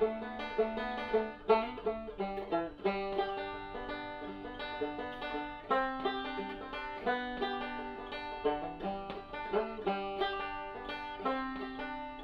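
Background music: a fast plucked banjo tune in a bluegrass or country style.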